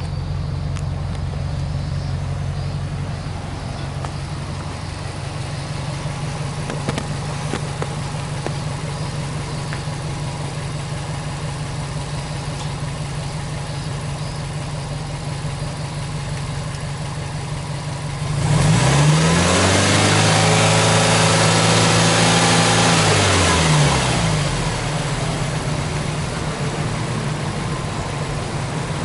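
2003 Subaru Impreza WRX STi's turbocharged EJ20 flat-four idling steadily, then revved with no load. About two-thirds of the way through, the revs climb, hold for about five seconds and fall back to idle.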